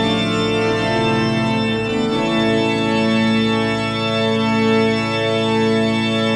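Church organ playing: a moving passage that settles into long held chords about two seconds in.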